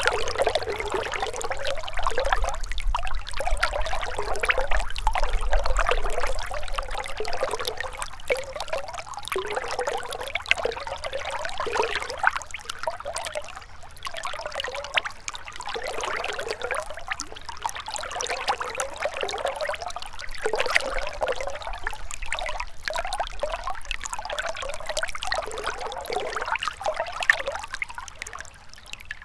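A gentle river flowing, its water trickling and babbling steadily.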